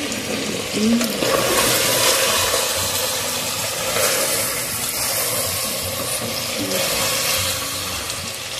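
Beef chuck and its dark juices sizzling and bubbling in an open pressure-cooker pot while a wooden spatula stirs and turns the meat, a steady hiss.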